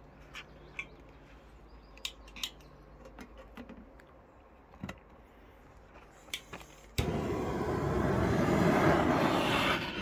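A few faint clicks and taps, then about seven seconds in a loud, steady hiss starts abruptly: a handheld torch flame blowing into the feed tube of a J-tube rocket heater to light the kindling.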